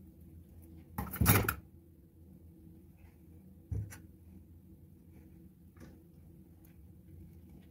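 Handling noise from wiring a juniper bonsai, with bonsai wire and pliers being worked: one louder rustle about a second in, a sharp click near four seconds, and a few faint ticks.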